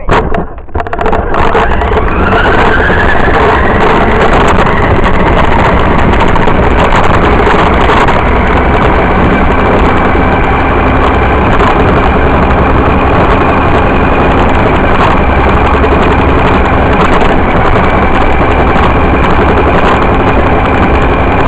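RC car running along a concrete sidewalk, heard from the camera riding on it: a loud, steady motor whine that rises in pitch about two seconds in as the car picks up speed, over the rumble of its wheels on the concrete.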